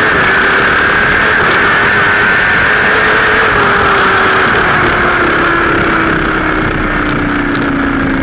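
Onboard sound of a nitrous-fed Suzuki GSX-R1000 drag bike's inline-four engine slowing down after its run, under loud wind rush. Its note holds for the first few seconds, then falls steadily as the bike slows.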